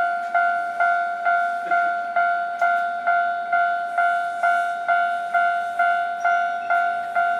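Japanese railway level-crossing warning bell ringing: a single electronic ding repeated steadily about twice a second.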